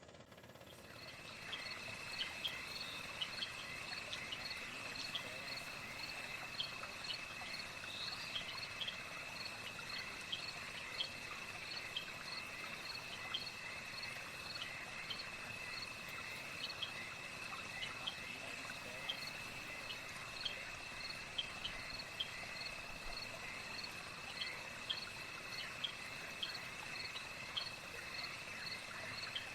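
Night chorus of crickets and other insects: a steady high-pitched trill with many short, higher chirps repeating over it. It fades in over the first second or so.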